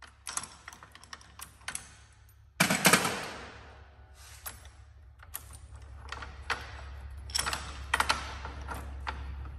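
Metal clicks and clanks of a coil spring compressor and strut spring being handled and loosened, with a louder rattling burst about two and a half seconds in, then more scattered clicks.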